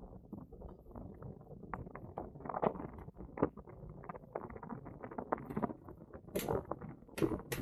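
An Engwe Engine Pro e-bike rattling and knocking over an uneven surface: a dense, irregular clatter, with a couple of sharper, louder knocks in the last part.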